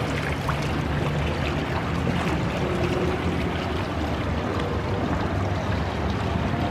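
Swollen river in flood rushing and swirling against the hull of a moored barge: a steady rushing water noise with a constant low rumble underneath.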